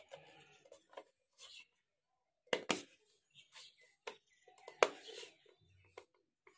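Sharp plastic clicks and taps as a toy RC speedboat's hard plastic hull is handled and turned over in the hands, the loudest a pair about two and a half seconds in and another near five seconds.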